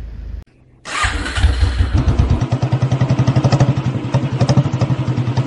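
A motorcycle engine starting just under a second in, then running with a steady, rapid thumping.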